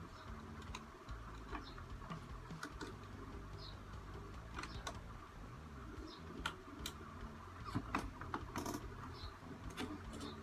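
Faint, irregular small clicks and taps of the plastic housing of a laptop cooler's turbine fan being handled and fitted together by hand, busier in the second half.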